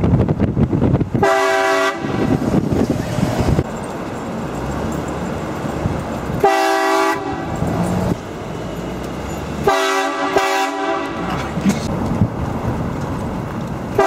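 Pickup-mounted train horn blasting a multi-note chord: a short blast about a second in, another near the middle, then two quick blasts close together near ten seconds. Between the blasts, the road and wind noise of the moving truck.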